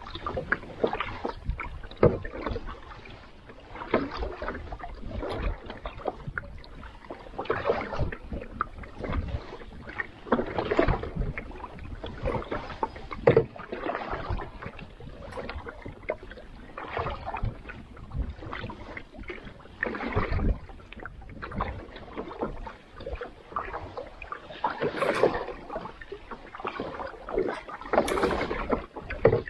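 Double-bladed paddle stroking through the water beside an Old Town Pack Canoe, a swishing splash with each stroke, about one every second or two.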